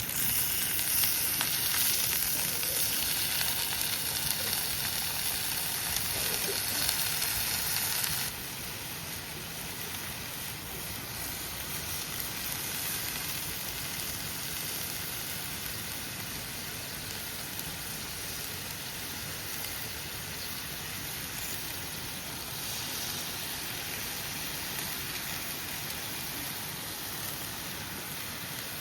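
Food sizzling in a hot pan, a steady frying hiss that drops abruptly to a quieter sizzle about eight seconds in.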